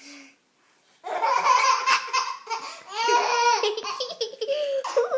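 Baby laughing in repeated bursts, starting about a second in after a short quiet gap. From about three seconds in the laughs turn higher and rise and fall in pitch.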